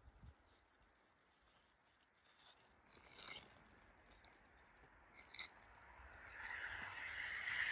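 Faint rustling and scratching of the nylon tent fabric being handled, with a longer rustle that grows louder near the end.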